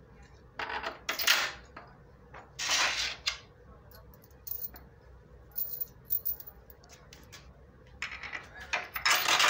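Loose metal mounting hardware (nuts, bolts and washers) clinking and rattling as it is handled, in a few short bursts.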